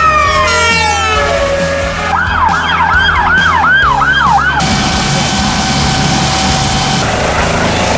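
Emergency vehicle siren over background music: one long falling sweep, then about two seconds in a fast yelp of about seven rising-and-falling sweeps, then a steady tone.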